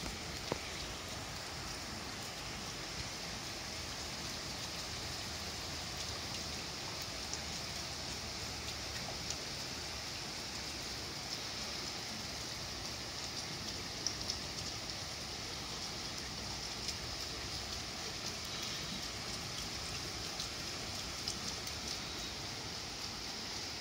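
Steady summer rain falling on trees and a wet standing-seam roof, an even hiss of rain with a few sharper drop ticks landing close by.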